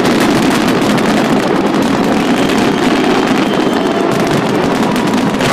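Fireworks display in a rapid barrage: many aerial shells bursting in quick succession, merging into a dense, continuous crackle and boom.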